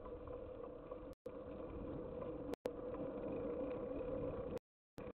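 Steady ride noise of a bicycle on a paved bike lane as picked up by the rider's camera, broken by several brief dropouts to silence, the longest near the end.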